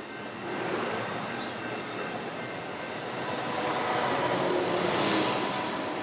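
Passenger train running past on the tracks, the rail and wheel noise building to its loudest about five seconds in, then easing.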